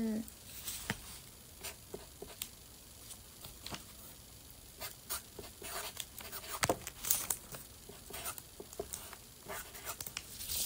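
Light, irregular taps and rustles of small objects being handled close to the microphone, with a louder knock about two-thirds through.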